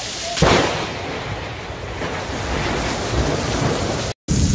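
Heavy rain with wind buffeting the microphone. About half a second in, a sudden loud thunderclap from a close lightning strike breaks in and rolls on as a low rumble.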